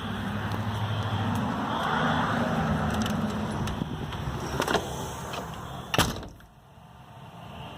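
Road noise of a passing vehicle, swelling to a peak and slowly fading. About six seconds in there is a sharp knock, after which it goes much quieter.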